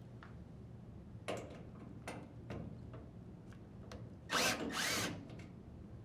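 Drill driver with a 1/4 inch bit running in a short burst of about a second, a little past the middle, to unthread a dryer door hinge screw, after a few light clicks of the bit being fitted to the screw head.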